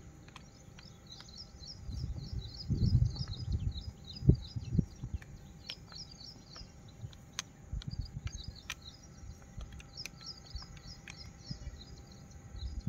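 Small birds chirping in quick runs of short high notes, repeated throughout. Low muffled thumps and rustles of handling sound close by, loudest about three seconds in and again just before five seconds.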